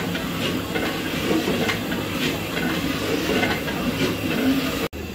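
Steady roar of a burner on high flame under a large aluminium cooking pot, with a metal ladle churning and scraping thick haleem in regular strokes. The sound cuts out abruptly near the end.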